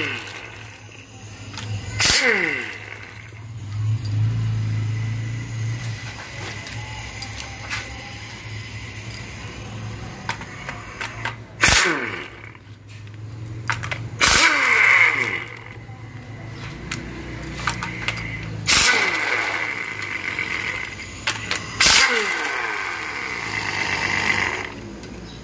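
Hand tools undoing the bolts of an automatic transmission case: a series of sharp metallic knocks every few seconds, some followed by a falling whine, over a steady low hum.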